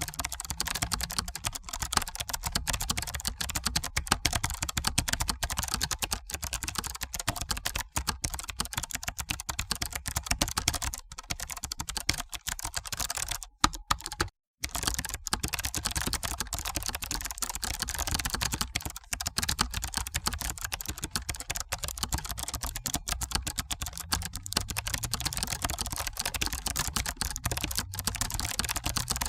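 Computer keyboard being typed on rapidly: a dense, uneven stream of key clicks. The typing cuts out completely for a moment about halfway through, then carries on.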